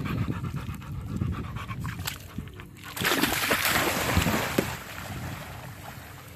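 A Rottweiler panting, then a loud splash about three seconds in as it plunges into the sea, followed by water churning and fading as it swims off.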